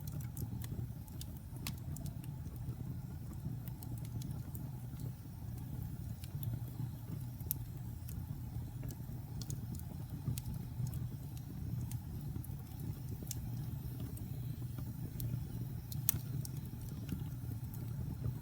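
Wood logs burning in a fireplace: a steady low rumble of the fire with scattered sharp crackles and pops, one louder pop about sixteen seconds in.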